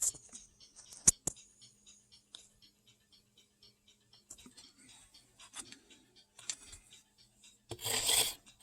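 Faint steady ticking about three times a second, with a few sharp clicks in the first second and a half and a short rush of noise near the end.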